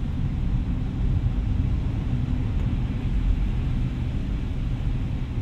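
Steady low rumble of a moving car heard from inside the cabin: tyre, road and engine noise of a 2014 Toyota Avanza 1.3 automatic (K3-VE four-cylinder) cruising.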